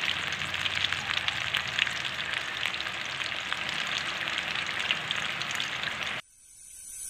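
Eggplant pieces frying in hot oil: a steady sizzle full of small crackling pops. It cuts off suddenly about six seconds in, and a faint rising sound starts near the end.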